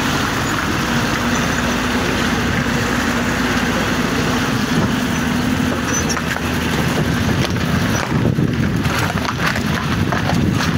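A motor vehicle's engine running steadily, with a steady low hum under a loud, even rush of noise.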